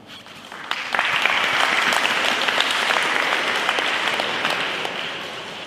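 Audience applauding, starting under a second in and dying away near the end.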